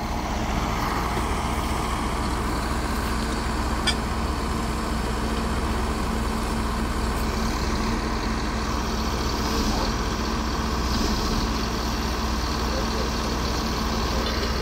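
Engine of track-maintenance machinery running steadily with an even hum. A single sharp click about four seconds in.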